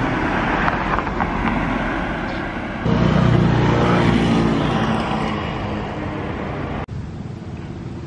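Road traffic: a motor vehicle's engine grows loud about three seconds in and fades away over the next few seconds, as it passes close by.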